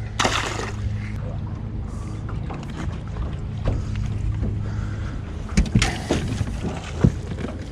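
Steady low hum of a fishing boat's motor, with a few sharp knocks, a cluster of them about two-thirds of the way through.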